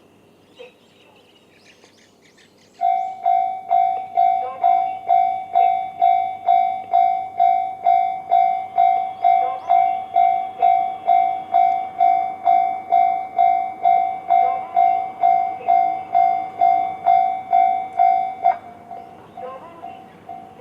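Japanese railway level-crossing warning alarm in the JR standard tone, starting about three seconds in and ringing about twice a second in an even, bell-like pattern. Near the end it drops suddenly to a quieter level and keeps ringing.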